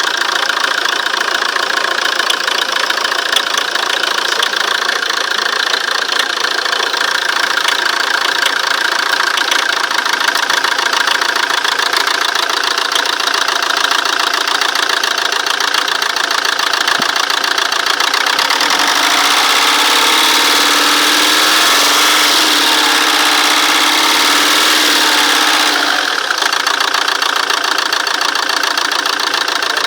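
Fiat Doblo 1.9 JTD four-cylinder common-rail diesel idling with a knock that the owner suspects comes from a faulty injector. From about 19 s to 26 s in, the engine note rises and falls and gets a little louder, then settles back to idle.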